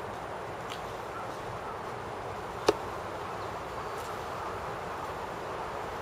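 A single sharp click about three seconds in, over a steady hiss of background noise.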